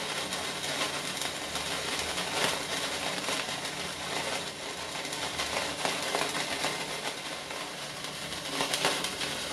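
Sparklers burning: a steady crackling hiss, with a few louder crackles about two and a half seconds in and again near the end.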